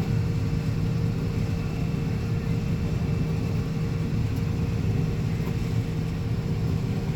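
Combine harvester running steadily while cutting soybeans: an even machine drone at a constant pitch.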